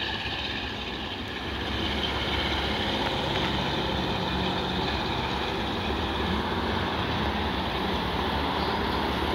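Passenger train hauled by an Alsthom diesel-electric locomotive pulling away along the line, a steady low rumble that swells slightly about two seconds in.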